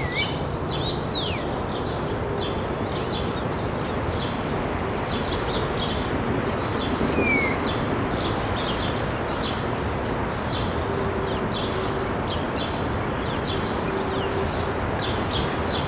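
Outdoor ambience: birds chirping in short, repeated calls, with a few whistled calls that glide up and down, over a steady background noise.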